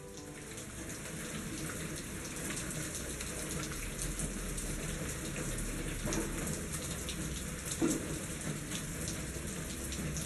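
Steady rain falling, fading in and growing louder over the first few seconds, with a few louder single drops standing out.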